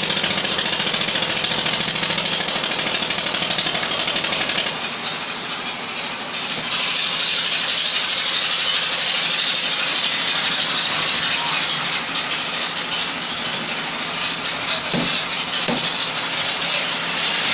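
Construction machinery running steadily during a concrete pour: the engine driving the skip hoist that lifts concrete up the tower. The noise drops for about two seconds around five seconds in, then comes back.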